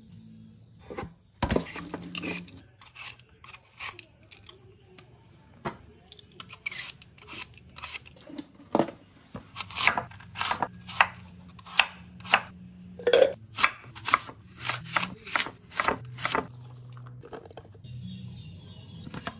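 Large kitchen knife cutting and chopping apple, garlic and ginger on a wooden cutting board: a run of sharp, irregular chops and crunching cuts, thickest in the middle, thinning out near the end.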